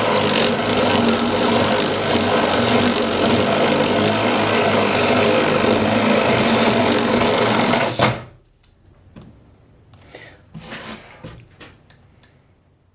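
DeWalt DC970 18-volt cordless drill running under load with a 1.5-inch spade bit, boring into a wooden plank. It runs steadily for about eight seconds, then stops suddenly, leaving a few faint knocks.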